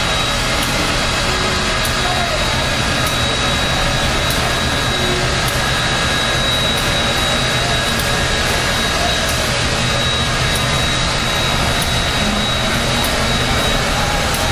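Canadian National steam locomotive 3254 standing on a turning turntable, its steam hissing steadily, with a thin, steady high whine above the hiss.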